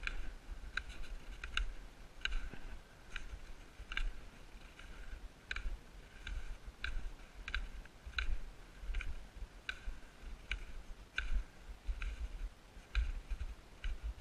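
Boots stepping on packed snow, a short squeaky click with each step at a walking pace of about two a second, over a low rumble.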